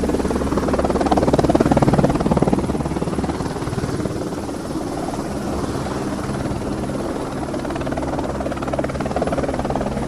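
Helicopter sound effect: rotor chopping rapidly and steadily over an engine hum, loudest a second or two in, then holding level as it hovers.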